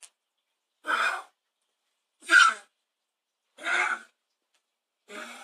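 A dog giving a honking cough: four harsh coughs about a second and a half apart, the last one quieter.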